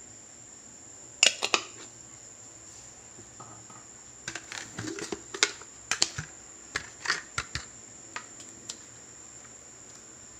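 Irregular sharp clicks and light knocks of kitchen containers being handled, in a cluster about a second in and a longer run in the middle. Crickets trill steadily and high behind them.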